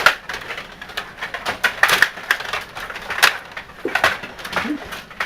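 Table hockey in play: a run of sharp hard clicks and knocks as the puck and players strike, the loudest right at the start and about three and a quarter seconds in.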